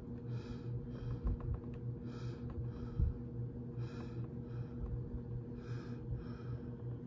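Close, rhythmic breathing, one in-and-out pair about every two seconds, over a steady electrical hum. There are two soft bumps of handling early on.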